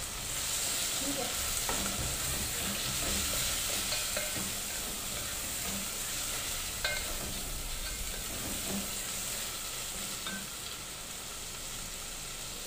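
Chopped tomatoes sizzling in hot oil with frying onions while a wooden spatula stirs them around the pot. There is a steady hiss, with a light knock of the spatula about seven seconds in.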